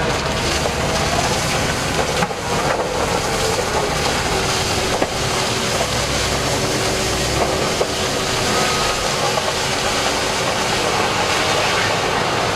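Heavy earthmoving machinery running: a loud, continuous engine and mechanical noise with occasional sharp clanks.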